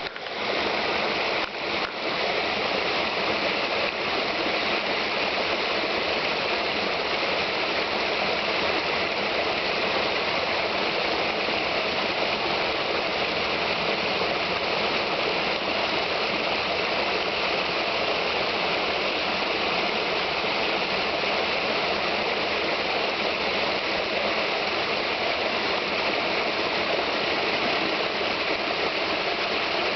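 Small brook babbling over stones, a steady rushing and gurgling of shallow running water.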